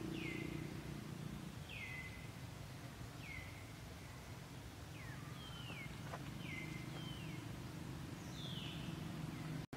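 An animal's short, high calls, each sliding down in pitch, about eight of them a second or so apart, over a steady low hum.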